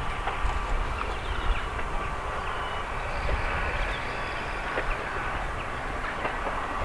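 Distant steam locomotive working a train, a steady low rumble with faint exhaust beats.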